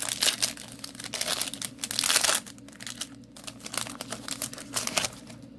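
Foil trading-card booster pack wrapper crinkling as it is torn open and handled, dense crackling for about the first two seconds, then sparser crinkles.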